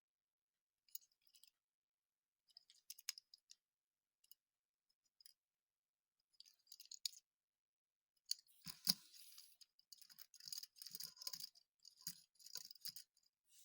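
Faint, sporadic crackles and clicks of a Hot Wheels blister pack being handled and opened. They grow busier in the last few seconds, with one sharper click about nine seconds in.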